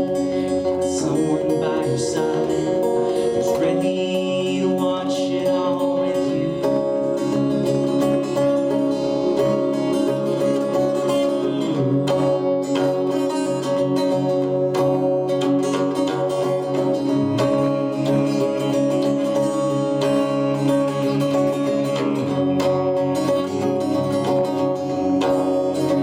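Acoustic guitar playing a slow, steady song, solo and live.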